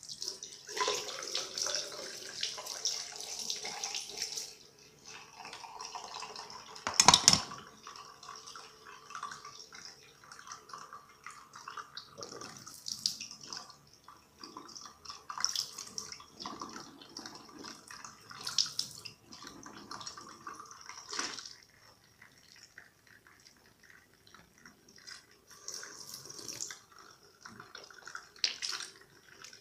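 Water from a bathroom tap running into the sink, with intermittent splashing as the mouth is rinsed after brushing teeth; one louder splash about seven seconds in.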